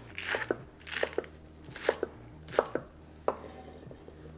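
Chef's knife slicing green onions on a wooden cutting board: about five cuts, one every 0.7 seconds or so, each a short knock of the blade on the board, stopping about three seconds in.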